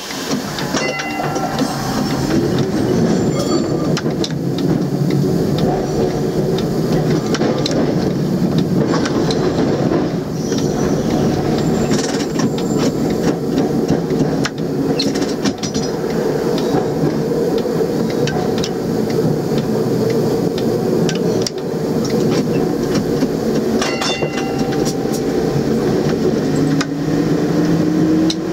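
Tram running along street track, heard from on board: a steady rumble of steel wheels on rail with scattered sharp clicks. Near the end a motor whine rises slowly in pitch.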